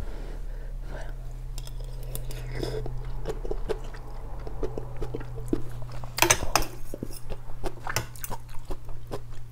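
Close-miked eating of rice-noodle soup: chewing and wet mouth sounds, with a steel spoon and fork clicking against the bowl, the loudest clicks a little past the middle. A steady low electrical hum runs underneath.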